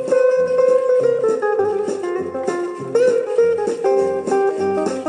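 Swing music led by plucked guitar over a steady walking bass, with no singing.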